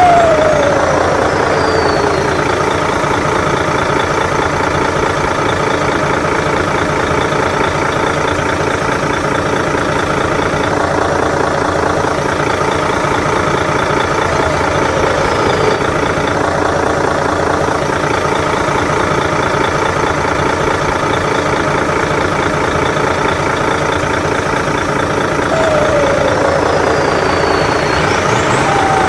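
Large battery-powered RC tractor truck's sound unit playing a heavy diesel truck engine running steadily at idle. A few turbo-style whistles fall in pitch: one at the start, one about halfway, and two near the end.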